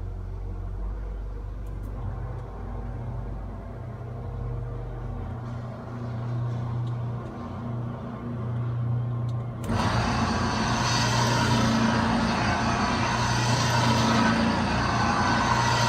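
Gemco twin shell blender running: a steady low motor hum, which jumps suddenly to a louder, fuller mechanical running noise about ten seconds in.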